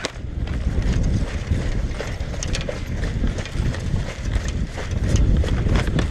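Running footfalls and the jostling of a body-worn camera as its wearer runs, heard as a loud, uneven low thumping.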